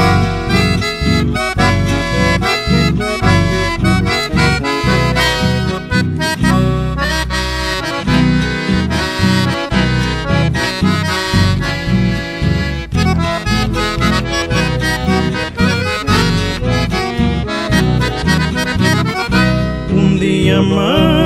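Chamamé band music: an accordion leads an instrumental passage over a steady, pulsing bass beat.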